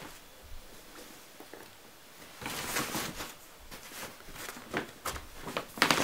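Paper gift bags and wrapping being handled: rustling and crinkling that starts about two seconds in and grows busier near the end.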